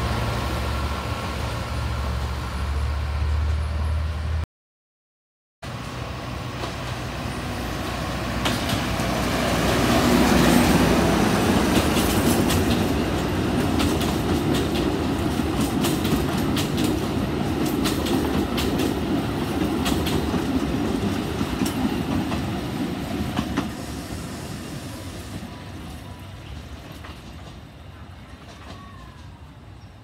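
Alishan Forest Railway diesel locomotive DL-47 running past with a steady low engine hum; after a brief break, its narrow-gauge passenger coaches roll by with a rumble and wheels clicking over the rail joints, swelling and then fading as the train moves away.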